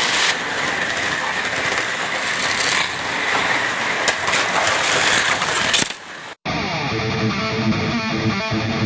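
Carrera Go slot cars running on the plastic track: a steady, noisy whir with faint clicks. About six seconds in it cuts out abruptly and guitar music starts.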